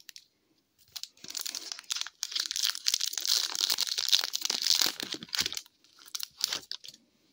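Foil wrapper of a hockey card pack being torn open and crinkled in the hands: a dense crackling rustle starting about a second in and lasting some four seconds, then a couple of short crinkles near the end.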